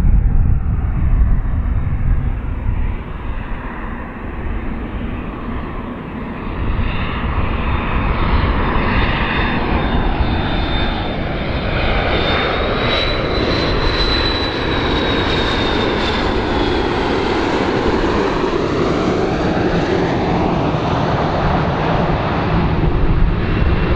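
McDonnell Douglas MD-82 airliner on landing approach, its two rear-mounted Pratt & Whitney JT8D turbofans giving a steady jet rumble. A thin high whine climbs a little and then slides down in pitch around the middle.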